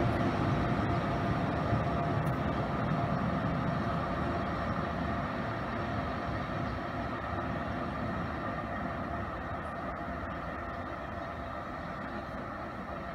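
Frecciabianca passenger train with E414 electric locomotives pulling away, a steady rumble with a faint hum slowly fading as it recedes.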